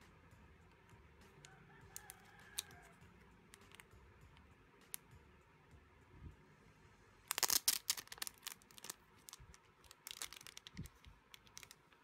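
Thin clear plastic sleeve crinkling as a stack of photocards is handled and slid out of it: faint light taps and rustles at first, then loud crinkly bursts from about seven seconds in.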